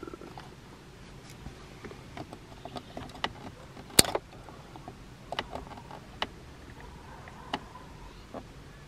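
Plastic trim wedge prying at the front 12V socket in a Mercedes W212 centre console: scattered small plastic clicks and taps, the loudest a sharp click about four seconds in.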